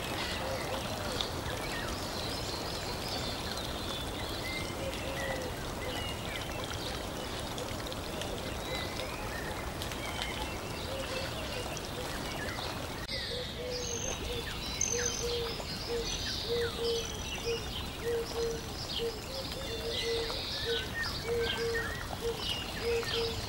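Birds chirping over a steady rush of running water, a nature-ambience bed. About halfway through, a short low call starts repeating about twice a second.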